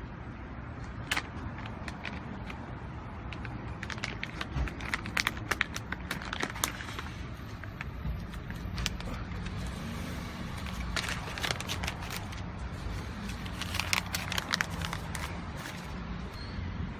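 Steady low rumble of outdoor background noise, like distant traffic, with scattered bursts of crackling clicks a few seconds in and again later on.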